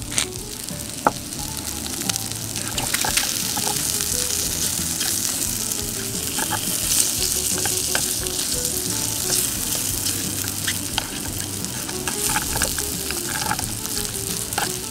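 Cubes of Spam frying in a pan: a steady sizzle with scattered pops and crackles, swelling a couple of seconds in.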